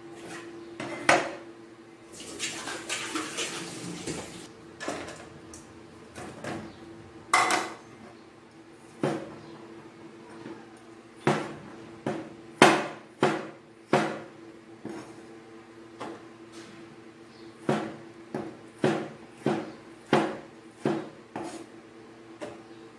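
A cleaver-type kitchen knife chopping on a plastic cutting board: irregular sharp knocks, a few at a time, with a short stretch of scraping-like noise about two seconds in. A steady low hum runs underneath.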